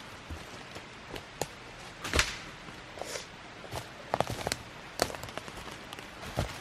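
Dry sticks and leaf litter cracking and crunching in irregular sharp snaps, about eight of them, the loudest about two seconds in.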